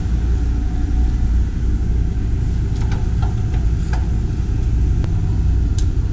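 Engine idling with a steady low rumble, with a few light clanks of footsteps on metal stair treads about three to four seconds in.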